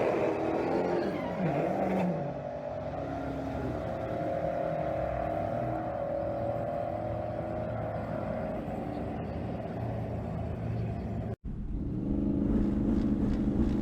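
Twin-turbo 351 Windsor V8 in a Ford Ranger running. Its pitch dips about a second in, then holds steady for several seconds. The sound breaks off for an instant about eleven seconds in, and the engine is heard running again after the break.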